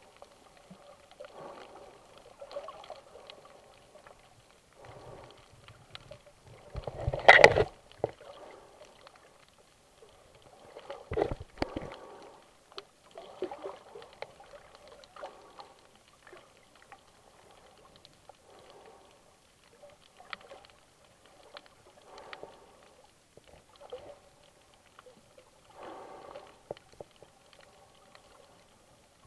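Muffled water sounds heard through an underwater camera: irregular swishing surges every second or two, with a much louder rush about seven seconds in and another shorter one around eleven seconds.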